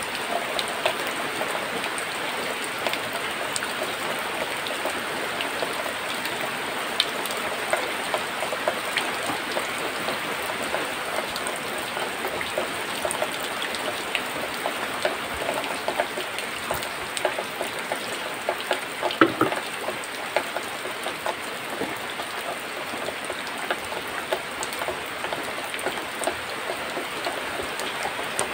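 Steady hiss and patter of rain, with scattered drips and no regular beat. About two-thirds of the way through there is one brief, louder pitched sound.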